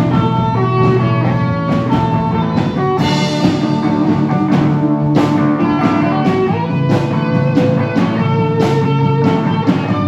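Rock band playing an instrumental passage: guitar notes over a steady drum beat.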